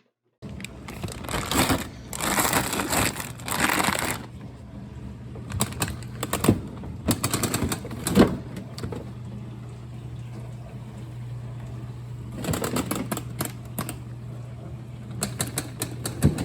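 Containers and shelf bins clattering and knocking while a refrigerator is being emptied and rearranged: several spells of rustling handling noise with sharp clicks, over a steady low hum.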